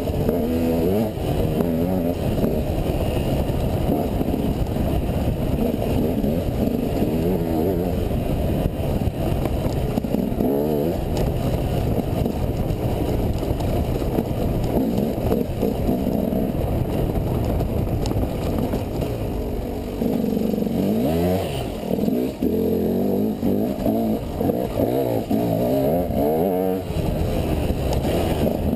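Enduro dirt bike engine running hard under the rider, revving up and down over rough ground, recorded close from the rider's helmet. A couple of brief throttle lifts come in the last third.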